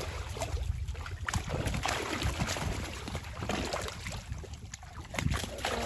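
Water splashing and sloshing in short irregular bursts, over a steady low rumble of wind on the microphone.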